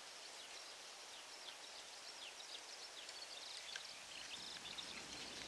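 Faint open-air ambience with small birds chirping: many short, quick chirps scattered through. A faint low rumble rises from about four seconds in.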